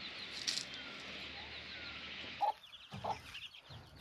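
A steady hiss with small bird chirps. About two and a half seconds in it gives way to a domestic hen clucking two or three times, in short separate calls.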